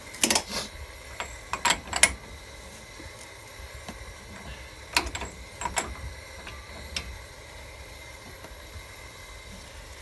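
Metal clanks and clicks of hand tools on the axle nut and wheel hub as the nut is undone. They come in a few short clusters, the loudest about two seconds in.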